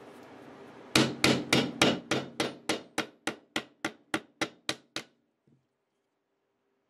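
Hammer tapping frets into the slots of a guitar fretboard: about fifteen quick, evenly spaced taps, three or four a second, getting quieter toward the end.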